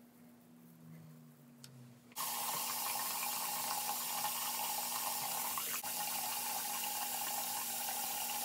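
Water running from a bathroom sink tap, coming on suddenly about two seconds in as a steady rush.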